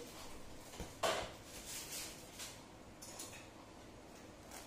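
Kitchenware being handled on a counter: a sharp knock about a second in, the loudest sound, then a few fainter clinks and clicks.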